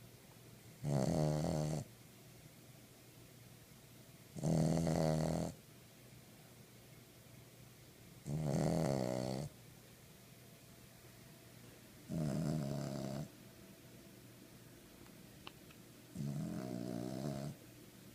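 Snoring: five slow, loud snores, each about a second long, coming about every four seconds with quiet breaths between.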